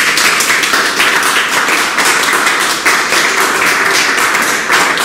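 A small group of about a dozen people applauding, with steady, loud hand-clapping.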